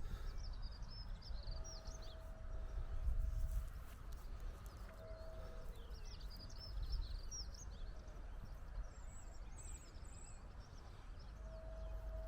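Small songbirds twittering in short bursts of quick chirps, three or four times, over a steady low rumble of wind and movement on an outdoor walk.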